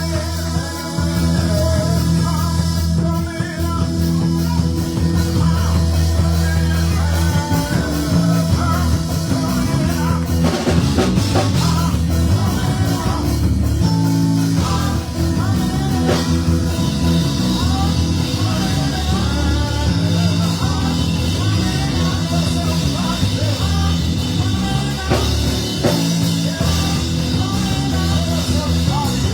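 Live band music with electric guitar, bass and drums, and singing voices over it.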